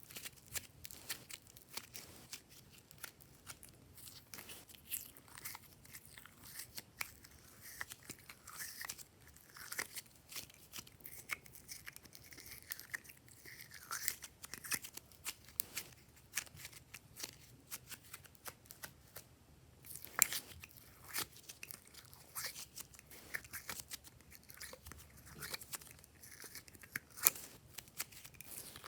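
Glossy slime being kneaded and stretched by hand, giving a steady stream of irregular sticky clicks and small pops.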